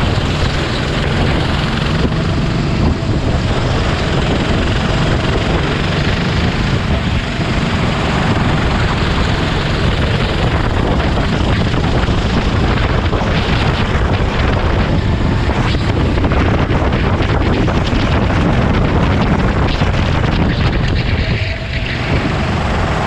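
Sodi RT8 rental kart's 390cc four-stroke single-cylinder engine running hard at close range on a lap. The engine note dips briefly near the end as the driver lifts for a tight hairpin.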